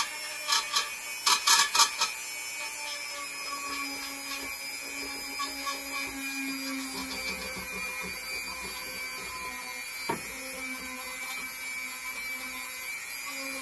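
Dremel rotary tool running at a steady speed, its polishing nub buffing a chromatic harmonica slide with metal polish, a constant high motor whine. A run of sharp ticks sounds in the first two seconds, and one more click about ten seconds in.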